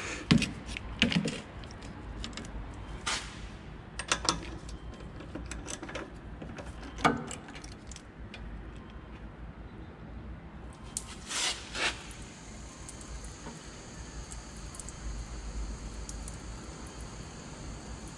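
Scattered metallic clicks and clinks of a wrench working the left rear brake bleeder screw. About twelve seconds in, a steady faint high whine with a soft hiss starts and keeps on.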